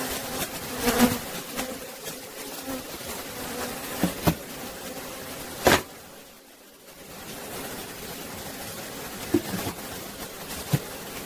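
A swarm of honeybees buzzing steadily over an open hive box as bees are shaken off the comb frames. A few sharp wooden knocks cut through, the loudest a little over halfway.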